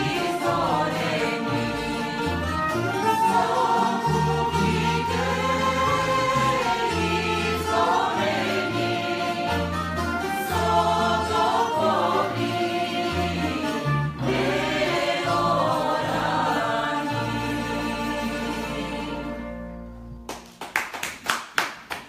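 Mixed choir of men's and women's voices singing a Bulgarian folk song in harmony, with plucked tamburas under it. The song ends about two seconds before the close, followed by brief scattered clapping.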